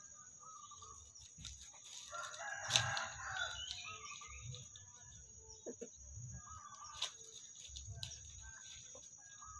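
Domestic chickens clucking with short calls while foraging, and a rooster crowing once about two seconds in, the loudest sound. A few sharp clicks and a steady high-pitched whine run underneath.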